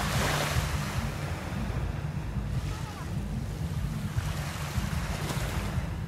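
Small waves breaking and washing up on a sandy beach, with a surge of surf about the start and another near five seconds in. A steady low rumble of wind on the microphone runs underneath.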